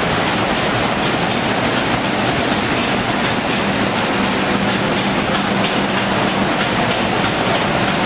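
Automatic spray-painting line running: a steady hiss of air spray guns and machinery, with a constant low hum and faint ticking.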